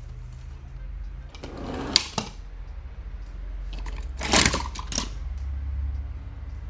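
Toy cars and trucks clattering and knocking against each other and a hard board as they are handled out of a cardboard box: sharp clacks about two seconds in and a cluster of clatter around four and a half seconds in, over a low steady hum.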